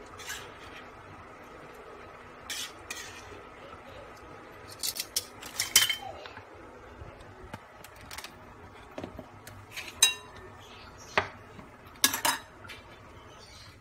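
Utensils and dishes clinking as noodles are served from a frying pan onto a ceramic plate: scattered sharp clinks and taps, loudest about six seconds in, with more near ten and twelve seconds, where the plate is set down on a wooden board.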